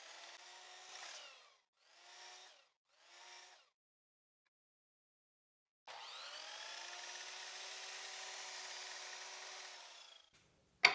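An electric power tool's motor runs at a steady pitch: three brief bursts of about half a second to a second and a half, then one longer run of about four seconds that starts sharply about six seconds in and dies away near the end.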